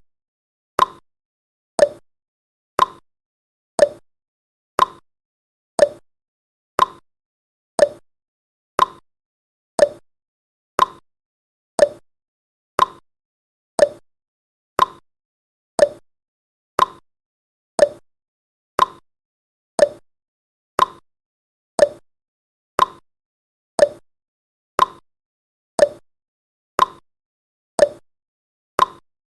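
Countdown timer tick sound effect: a short, sharp tick once every second at an even pace.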